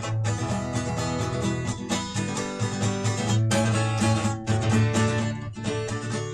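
Acoustic guitar strummed in a steady rhythm, chords ringing between verses of the song.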